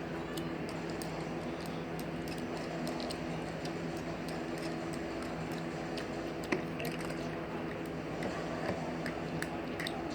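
Light scattered clicks and taps of small toys being handled over a steady low hum, with one sharper click about six and a half seconds in.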